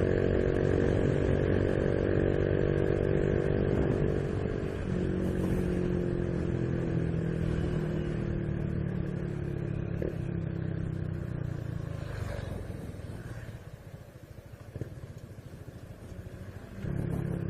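Honda Biz 125's single-cylinder four-stroke engine running under way, its pitch slowly sinking as the bike eases off. About two-thirds of the way through it drops to a quieter, low running sound, then picks up strongly again near the end.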